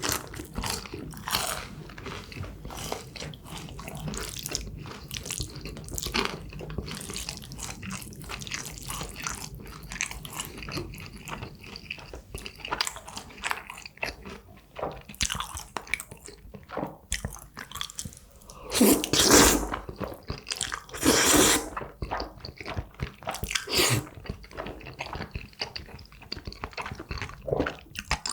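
Close-up eating sounds of jjajangmyeon and crispy tangsuyuk: steady chewing and biting with crunches and wet clicks. Two louder, longer sounds stand out about two-thirds of the way in.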